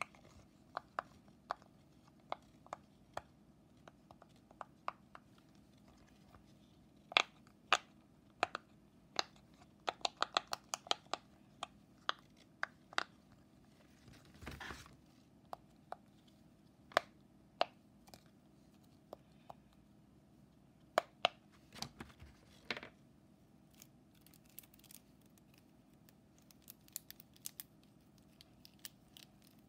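Scattered sharp clicks and pops from plastic and silicone fidget toys being handled, with a quick run of clicks about ten seconds in. A brief rustle partway through, and near the end rapid small clicks as a wacky track's plastic links are twisted.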